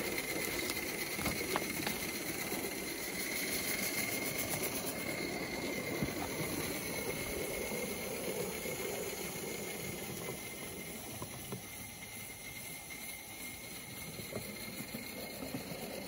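Live steam garden-gauge locomotive running along the track with a steady hiss of steam and a few faint clicks.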